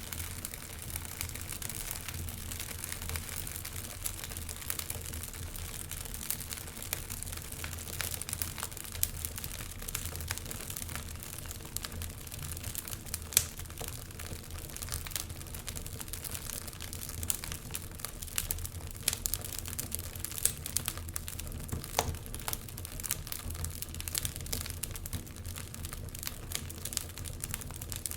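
Wood fire crackling in a fireplace, with frequent irregular sharp pops and snaps over a steady low rumble.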